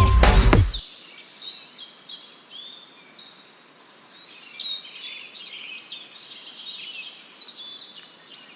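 Music cuts off about a second in, leaving a chorus of many birds chirping, whistling and trilling at once, short overlapping calls of many different shapes.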